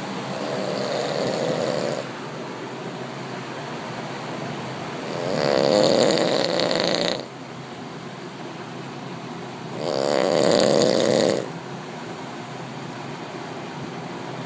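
A man snoring: three long, rattling snores about four to five seconds apart, the second and third louder than the first.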